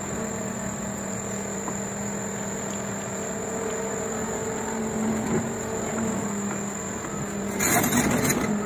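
Pile-driving rig's engine running steadily with a faint high whine while the rig hoists a pile; no hammer blows. A loud rushing noise lasting about a second comes near the end.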